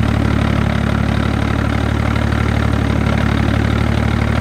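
Single-turbo BMW 335i's N54 straight-six idling with the AC on, over a steady rattle from its DKM twin-disc clutch with the pedal released. The AC raises the idle, which makes the clutch chatter louder; it almost sounds like something's broken or loose, a known trait of this twin-disc clutch.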